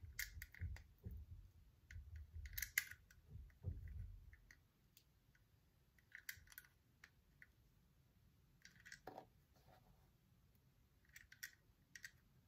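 Faint, sharp clicks of small plastic LEGO bricks being picked up and pressed together, coming in small clusters every few seconds, with soft low handling noise in the first four seconds or so.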